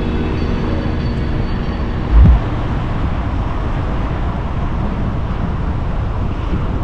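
Steady road and wind noise of a car driving along a motorway, with one short, loud low thump about two seconds in.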